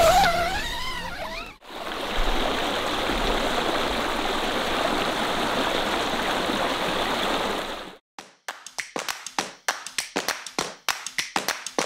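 A shallow stream rushing over rocks, a steady wash of water lasting about six seconds. It is preceded by a brief wavering, voice-like sound that cuts off, and it stops abruptly near the end, giving way to a rapid run of sharp taps.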